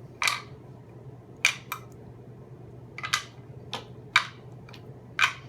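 Cylindrical 1.2-volt battery cells clicking as they are set down and arranged by hand, about seven short, sharp clicks at irregular intervals.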